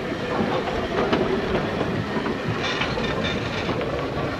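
Isle of Man Railway steam locomotive No. 11 Maitland, a Beyer Peacock 2-4-0 tank engine, working close by with a steady mechanical clatter and scattered knocks. There is a brief hiss of steam about three seconds in.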